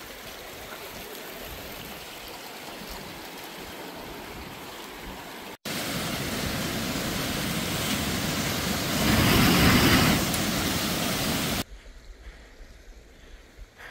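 Rushing water of a mountain stream: a steady noise that jumps louder after a cut about halfway through and swells for a moment, then drops to a much quieter background near the end.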